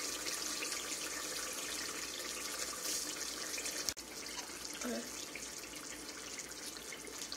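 Pot of blended pepper, tomato and onion sauce bubbling steadily on the stove, with a single light knock about four seconds in.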